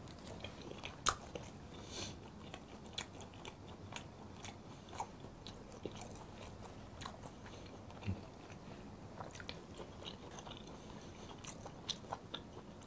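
Close-miked chewing of raw croaker sashimi: soft, wet mouth clicks and smacks scattered unevenly, the loudest about a second in.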